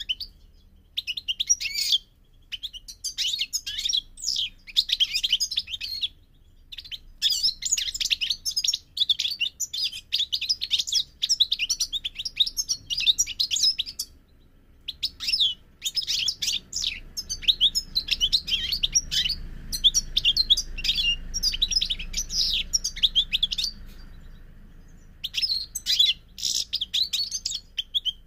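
European goldfinch singing: long runs of rapid, high twittering and trills, broken by a few brief pauses.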